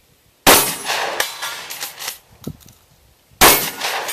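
Two handgun shots about three seconds apart, each ringing out in a long echo.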